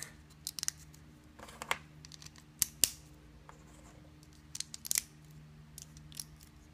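Plastic LEGO bricks clicking and clacking as the pieces of a small speaker are pressed together and it is set down on a table: a scatter of sharp clicks, the loudest a little under three seconds in and another cluster about five seconds in.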